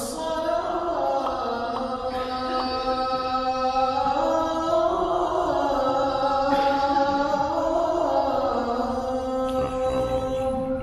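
Imam's melodic Quran recitation during congregational prayer: one male voice chanting in long held notes that glide up and down, with short breaks between phrases.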